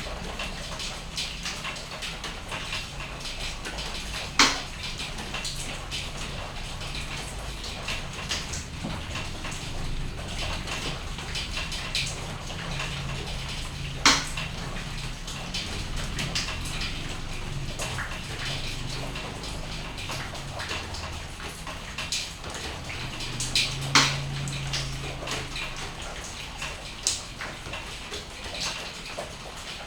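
Rain falling, a steady patter full of small drips, with a few louder sharp taps from single drops, roughly ten seconds apart.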